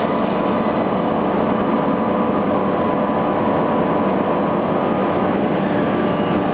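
HOMAG BOF 211 CNC machining centre's 5-axis spindle running a long router bit through a wooden stair tread: a steady, loud milling noise with a thin whine over it.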